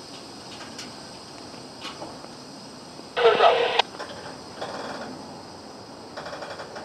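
Short bursts from a handheld scanner radio: one loud burst about three seconds in, then two shorter, weaker ones, with steady hiss beneath.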